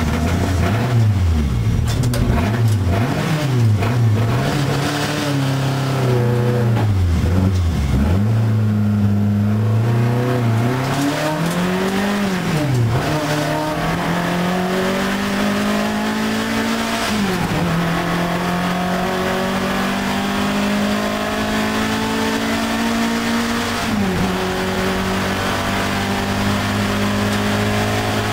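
Alfa Romeo 1750 GTV's twin-cam four-cylinder engine racing, heard from inside the cabin. Revs rise and fall quickly with blipped downshifts through the first half, then climb steadily as the car accelerates, broken by two upshifts, the second near the end.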